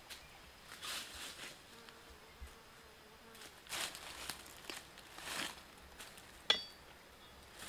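Bare feet stepping through dry leaf litter on a forest floor: a few separate rustling, crunching steps, with an insect buzzing briefly in the middle and a faint high insect drone behind. Near the end comes a single sharp crack, the loudest sound.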